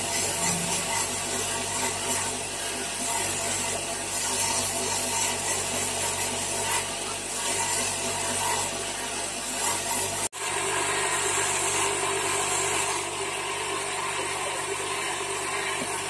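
Motorised grinding wheel running wet while a piece of rough Sungai Dareh agate is held against it and ground: a steady rasping hiss. It cuts out for an instant about ten seconds in.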